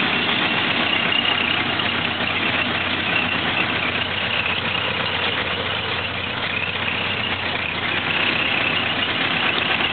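1930 Ford Model A's four-cylinder flathead engine idling steadily.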